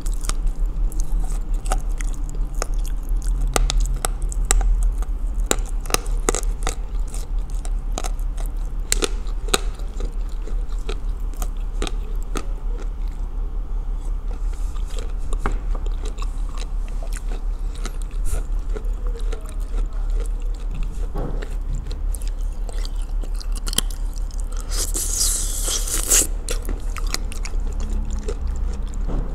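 Close-up chewing of soaked Ural clay coated in blue Uzbek clay, with many crisp crunches as the lumps are bitten and chewed. A short, hissing scrape comes a few seconds before the end.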